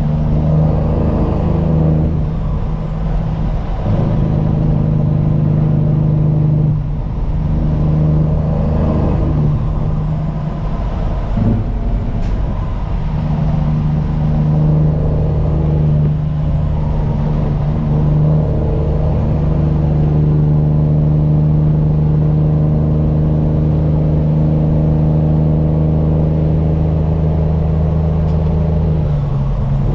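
Straight-piped Peterbilt 389 semi truck's diesel engine, heard from inside the cab while driving. Its note breaks and shifts several times in the first half, then holds a steady drone for most of the second half.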